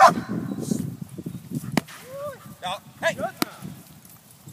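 Young dog barking in bite-work training, with two sharp cracks about a second and a half apart.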